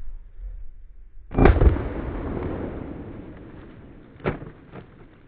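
Shotgun slug fired: one loud boom about a second and a half in that rumbles away over a couple of seconds, then a fainter sharp crack near the four-second mark.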